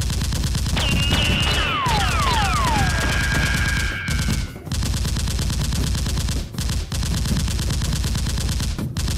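Rapid automatic gunfire sound effect, a steady stream of shots broken by a few short pauses. About a second in, several whistles fall in pitch over the shots, followed by a high steady tone.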